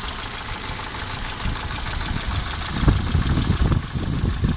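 1988 Mercedes 190E two-litre four-cylinder engine idling with a dull, uneven knock, the low thumping growing stronger in the second half. The owner suspects the valve train: a loose camshaft or tapping hydraulic lifters.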